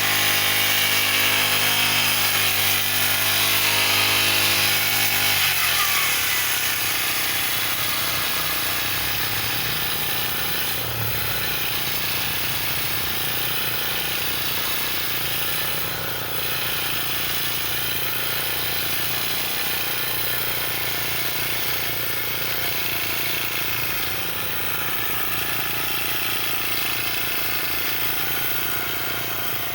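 Petrol brush cutter (grass trimmer) engine running at high revs, then throttled back about five seconds in and left running more slowly, close to idle.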